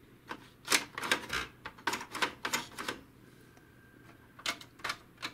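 Hard plastic clicks and clacks from an HP DeskJet 2130 inkjet printer's parts being worked by hand. A quick run of them comes in the first three seconds, and a few spaced clicks follow near the end.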